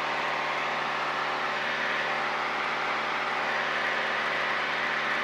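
Piper PA-28's piston engine and propeller droning steadily in flight, heard inside the cockpit as a constant hum over a broad hiss.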